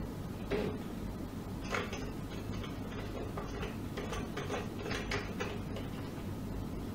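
Pulsed shortwave diathermy unit running during treatment: soft, irregular ticks and clicks over a steady low hum.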